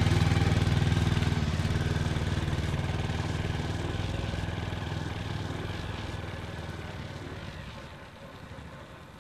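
Motorcycle engine running as the bike rides away, loudest at first and fading steadily into the distance.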